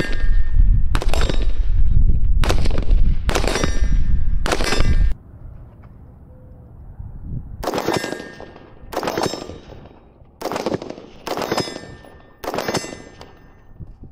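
About ten rifle shots from an AR-15 with a 20-inch barrel firing 5.56 M855 green-tip rounds, in two strings of five, each crack followed by a ringing of steel from the AR500 target plate. A heavy low rumble lies under the first five shots and stops abruptly about five seconds in.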